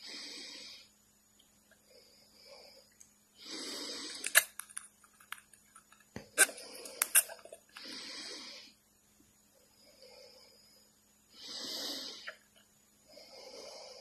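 A cockatiel making repeated breathy hissing sounds into a clear plastic cup, each about a second long, some louder and some softer. Around the middle come several sharp clicks of its beak tapping the plastic.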